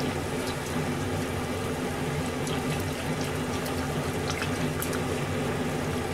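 Cabbage and pork soup simmering in a pan over a gas burner, a steady bubbling hiss. A few light clicks of chopsticks against the metal ladle as miso is stirred in.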